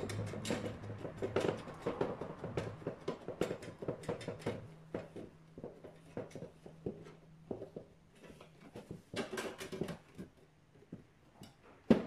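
Screwdriver turning a screw inside a sheet-metal cabinet: irregular small clicks, scrapes and metallic rattles as the screw is driven, with one sharp knock near the end.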